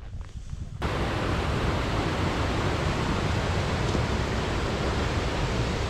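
Steady rushing of a fast-flowing mountain creek, starting abruptly about a second in.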